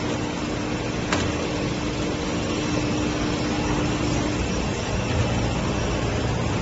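Stretch film printing and winding machine running: a steady noisy mechanical hum with a held tone that fades out about four and a half seconds in, and a single sharp click about a second in.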